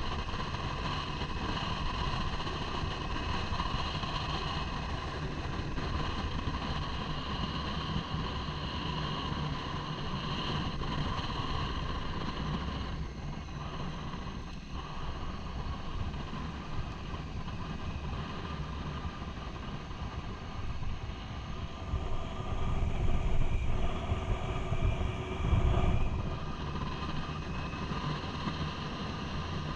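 Motorcycle engine running steadily under way, with wind rushing over the helmet-mounted microphone. The sound eases briefly near the middle and grows louder and heavier for a few seconds towards the end.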